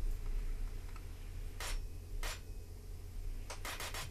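A pointed steel tool scratching the steel of the horseshoe knife's horse-head handle. Two single short strokes come first, then a quick run of four or five near the end, over a low steady hum.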